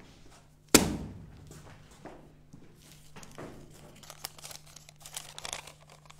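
A single sharp thump about three-quarters of a second in, then faint rustling and light taps over a steady low hum.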